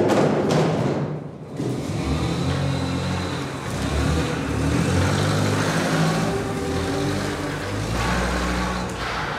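Mitsubishi forklift's engine running and revving, mixed with background music.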